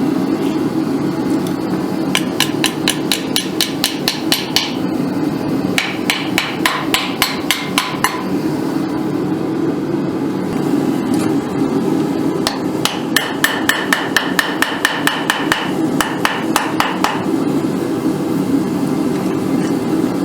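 Hand hammer striking hot steel wire in three quick runs of about five blows a second, each blow ringing, as the wire is bent to shape for a sword guard. Under it runs the steady roar of a gas forge.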